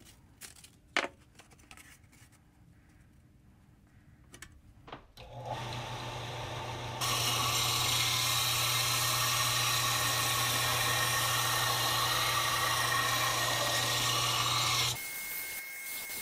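A few handling clicks as a sanding belt is fitted, then a WEN belt-and-disc bench sander switched on about five seconds in, running with a steady hum. From about seven seconds the steel cleaver blade is pressed against the belt, a loud, steady grinding that stops about fifteen seconds in, leaving the sander running.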